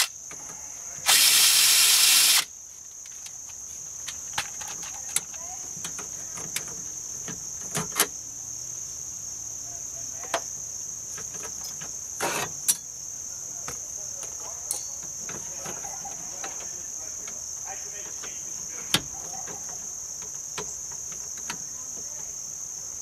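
A loud rush of hissing noise lasting about a second and a half near the start, then scattered sharp clicks and knocks, over a steady high-pitched insect chirring like crickets.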